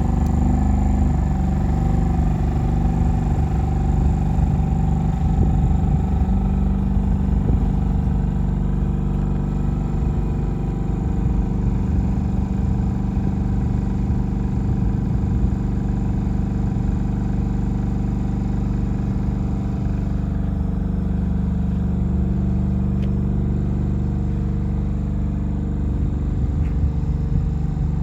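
Kohler diesel engine of a lighting tower's 5 kVA generator set, running steadily at a constant speed.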